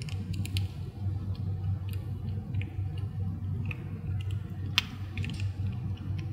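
Kitten chewing a treat and licking its lips: scattered small wet mouth clicks, the sharpest about five seconds in, over a steady low hum.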